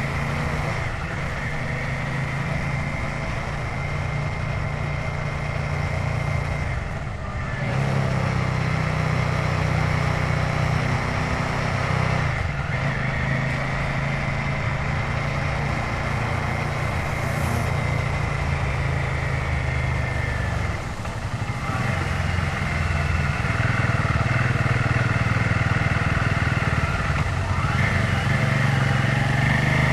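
Royal Enfield Himalayan 450's single-cylinder engine running steadily under way on the road. The engine sound dips briefly twice, about a quarter of the way in and again about two-thirds through, and runs louder after each dip.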